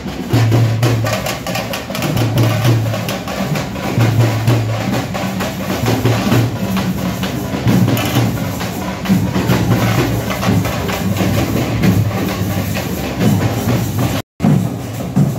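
Tamate frame drums beaten fast and loud with sticks in a dense, driving rhythm, over a low beat about once a second. The sound cuts out for an instant near the end.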